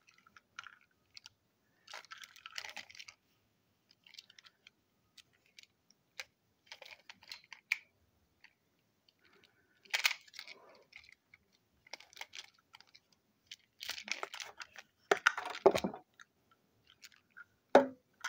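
Small plastic toy railway trucks handled close to the microphone: scattered clicks, light rattles and rubbing of plastic and fingers, with a louder run of scraping rattles about three-quarters of the way through and a short clunk near the end.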